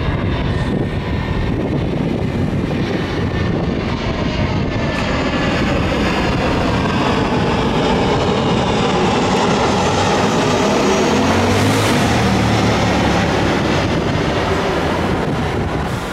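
Twin-engine jet airliner (a Boeing 737) passing low overhead on its landing approach. The jet engine noise swells to its loudest about two-thirds of the way through, and a whine glides down in pitch as it goes over.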